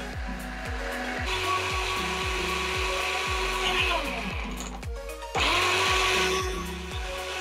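Electric kitchen blender running, puréeing chunks of carrot with milk and egg; it cuts out briefly about five seconds in and starts again louder. Background music with a steady beat plays throughout.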